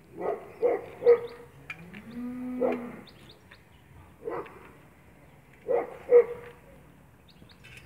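Animal calls: short, sharp calls in clusters of two or three, and about two seconds in one longer call that rises in pitch and holds for under a second.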